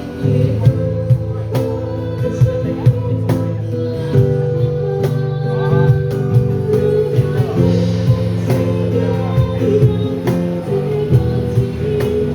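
Live pop band playing: strummed guitar over sustained chords, with a steady drum beat of regular sharp hits.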